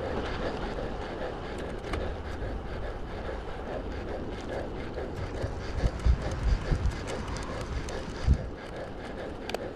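Road bike rolling along a paved trail: steady tyre and road noise with the bike rattling and a few sharp clicks. From about six seconds in, wind buffets the microphone in low gusts.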